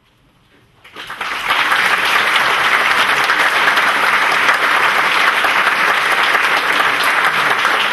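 Audience applauding: after near silence, the clapping starts about a second in and swells within half a second into full, steady applause.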